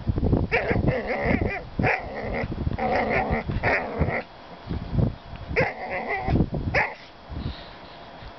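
Border Collie growling and yipping in play, in several short bouts, over low scuffing thumps as it paws and digs at the sand. It goes quieter near the end.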